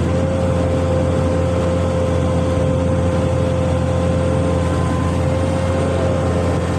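Amphibious excavator's engine running steadily under load, with a steady whine held over the low engine drone.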